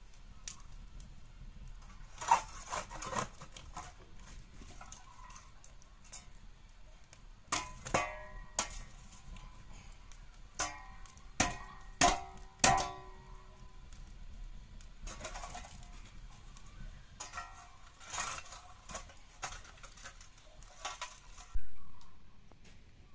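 Flat metal fire scraper raking embers across the brick floor of a wood-fired oven: a run of scrapes and metallic clinks in short groups with pauses between.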